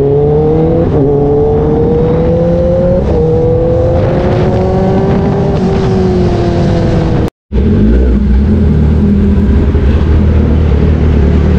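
Kawasaki ZX-10R inline-four superbike with an aftermarket exhaust accelerating hard, its pitch climbing and dropping at upshifts about a second and three seconds in, then falling away as the throttle eases. After a sudden break, the engine runs at a steady low rumble while the bike is stopped.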